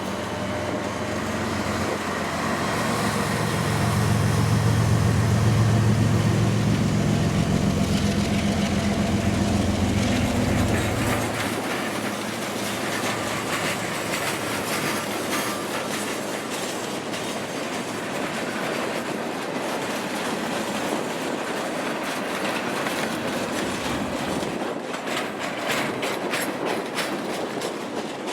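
Diesel freight train passing: the locomotive's engine drone builds and is loudest in the first ten seconds or so, then fades as the freight cars roll by with a steady clickety-clack of wheels over rail joints.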